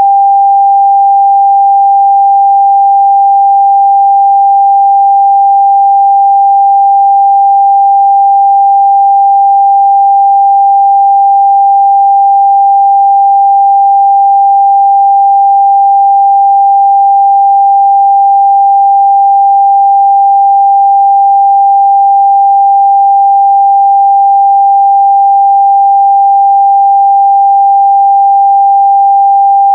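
Steady, loud 794 Hz sine-wave test tone, a single pure pitch held without change.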